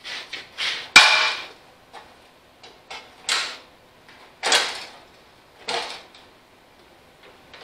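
John Deere 185 fender pan being worked down into place on the tractor by hand: a series of short scrapes and rubs every second or so, with one sharp knock about a second in.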